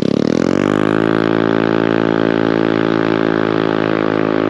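Honda Navi's 110 cc single-cylinder four-stroke engine, breathing through a Yoshimura exhaust with its silencer insert fitted, accelerating hard away: the pitch climbs over about the first second, then holds steady and high. The gearless automatic drive keeps the revs pinned rather than shifting down, so it stays loud even with the silencer.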